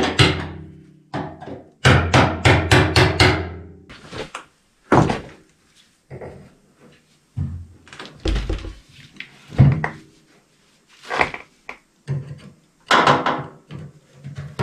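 Hammer tapping a screwdriver against the sending-unit lock ring on a new steel pickup-truck fuel tank to drive the ring round, the empty tank ringing under each run of taps. Two quick runs of about three or four taps a second, near the start and from about two to four seconds in, then scattered single knocks and clunks.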